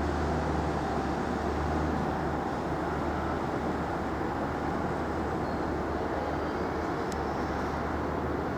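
Renfe class 319 diesel-electric locomotive running with a steady low engine drone and rumbling running noise.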